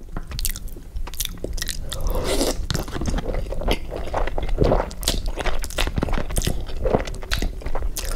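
Close-miked chewing of a person eating fettuccine alfredo mukbang-style: a steady run of wet smacking and clicking mouth sounds, with a few louder bursts.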